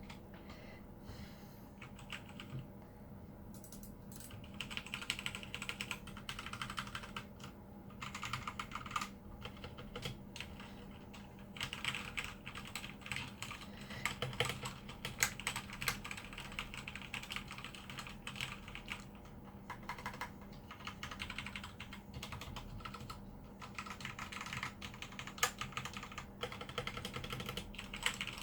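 Typing on a Redragon K617 Fizz mechanical keyboard: rapid key clacks in runs of a few seconds with short pauses, getting going about four seconds in.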